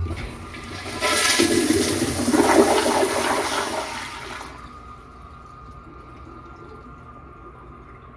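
A 1990s Crane Plumbing Whirlton toilet with a flushometer valve flushing. There is a short knock as the flush valve handle is pushed, then about a second later a loud rush of water through the bowl that lasts three to four seconds and fades out.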